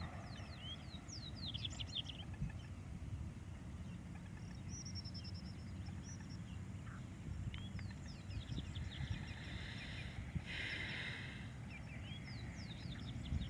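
Low rumble of wind on the microphone, with small birds chirping in quick clusters of high calls now and then. A brief hiss comes about three-quarters of the way through.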